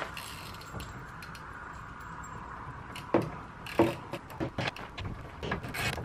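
Socket ratchet wrench working a hood-latch bolt through a car's front grille: scattered ratchet clicks and small metal taps, starting about three seconds in.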